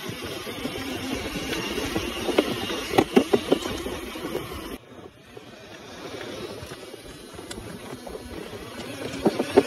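Scale RC Sherp crawler driving over rocky ground, its big tyres crunching on loose stones, with a run of sharp knocks about two to four seconds in. The sound drops off suddenly about five seconds in, then builds again toward the end.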